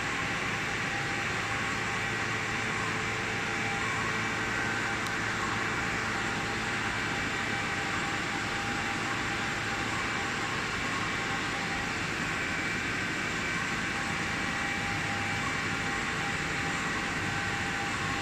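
Steady machine running noise with a low hum and a few faint, constant high whine tones, unchanging throughout.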